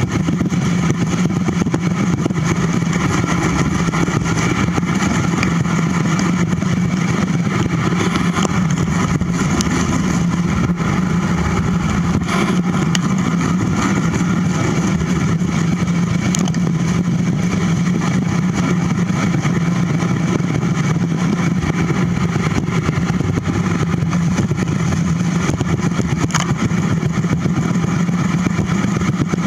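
Steady wind rush and rolling noise picked up by a bicycle-mounted camera riding a paved trail at about 15 to 18 mph, with a constant low hum underneath.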